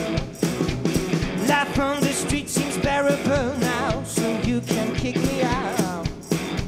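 Live garage rock from a two-piece band: an electric guitar and a drum kit, with the drums hitting in a steady beat. Sustained, wavering notes ride over the top for long stretches.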